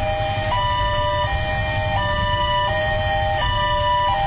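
Railway level-crossing warning alarm sounding, an electronic two-tone signal alternating between a higher and a lower pitch about every three-quarters of a second, warning that a train is approaching. It sounds over the low rumble of idling road traffic.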